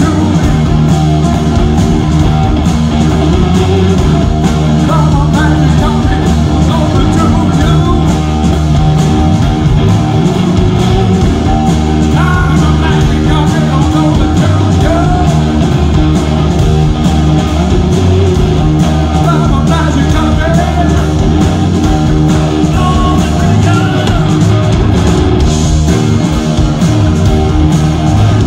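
Rock band playing live at full volume: electric guitars, bass guitar and drums in a steady, dense desert-rock groove.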